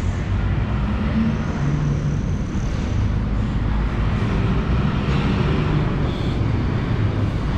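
Steady low rumbling background noise with a faint wavering hum underneath.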